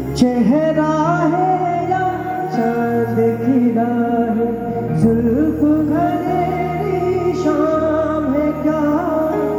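A male singer sings a wordless, ornamented vocal line that slides and wavers between notes, live through a PA, over a band's sustained low keyboard and bass chords.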